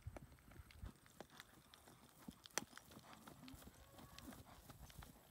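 Faint hoofbeats of a horse loping on dry, firm pasture ground, a scatter of dull knocks with one sharper strike about halfway through. A few faint low moos from cattle come in now and then.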